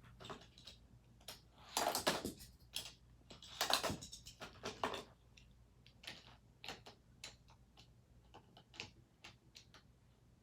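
Hot Wheels die-cast cars and plastic track pieces clicking and clattering as they are handled and set going. There are louder rattling clusters about two and four seconds in, then scattered light ticks.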